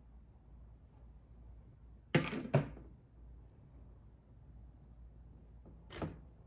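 Two sharp knocks about half a second apart, then a softer one near the end, over a low steady hum: handling noise of the silicone tube and the plastic cowl while the rubber seal is being glued.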